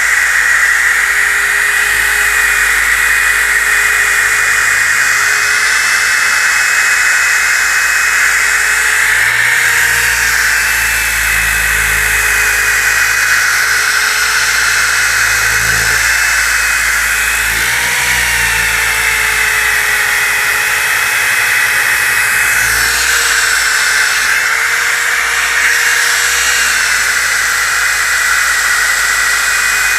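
DeWalt DWE6401DS disc sander running continuously, its disc sanding across a wooden board to take off dried glue squeeze-out. The steady motor whine dips slightly in pitch several times, around a third of the way in and again past the middle, as the sander is bearing down on the wood.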